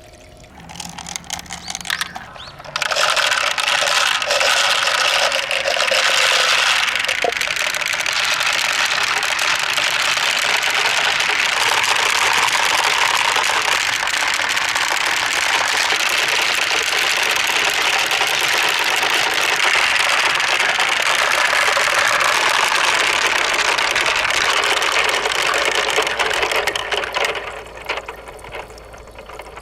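Many marbles rolling and clattering down a spiral somen nagashi water slider, a dense, continuous rattle of small clicks. It starts about three seconds in and fades out near the end.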